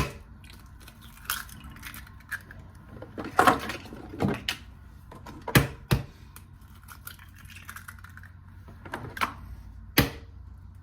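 Eggs being cracked against the rim of a bowl: a series of sharp taps and knocks at uneven intervals, with small clinks of shell and bowl between them.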